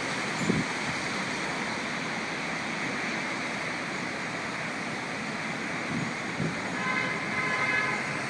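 Steady rushing noise of a windstorm with rain, broken by a few brief low thumps, with a short whining tone near the end.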